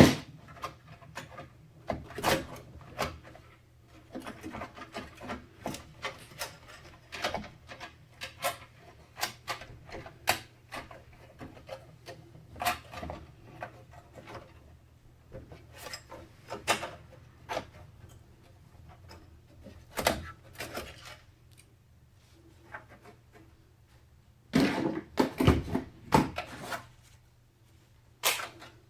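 Computer parts being handled during a PC build: a scattered run of small plastic and metal clicks, taps and rubbing, with a busier stretch of handling about 25 seconds in, over a faint steady low hum.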